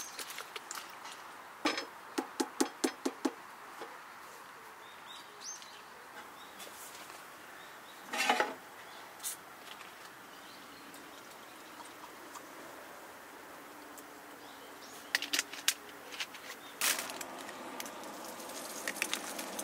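Scattered tabletop handling sounds: a quick run of about seven clicks and taps near the start, a short louder rattle about eight seconds in, and more clicks and rustles toward the end, over a faint steady background hiss.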